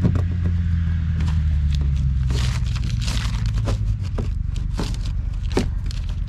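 Hands working plastic and rubber bilge-pump parts into place: scraping, rustling and short clicks, densest about two to three seconds in. Under it runs a low steady hum that fades out about four seconds in.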